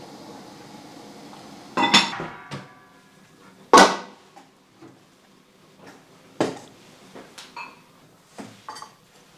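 Kitchenware clattering: three sharp knocks with a brief ringing, the loudest about four seconds in, then several lighter clinks. A steady hum runs underneath until the first knock, about two seconds in.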